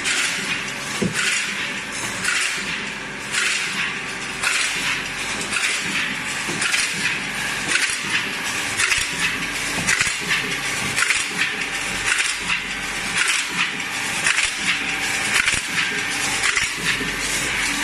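Automatic horizontal can-body welding machine for steel cans running, with a steady hum under a rapid, irregular series of metallic clacks.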